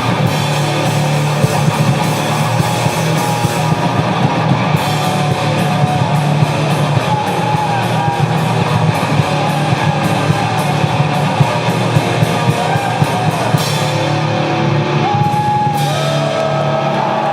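Heavy rock played by a band on electric guitar and drum kit. The drums strike an even, fast beat through the middle of the passage.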